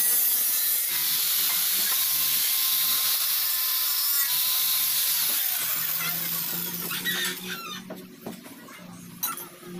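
A handheld electric power tool runs with a steady high-pitched whine, then is switched off about five seconds in and winds down, its pitch falling. A few sharp knocks of metalwork follow near the end.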